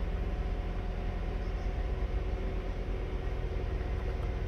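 Perodua Alza's four-cylinder engine idling steadily, a low even hum heard inside the car's cabin.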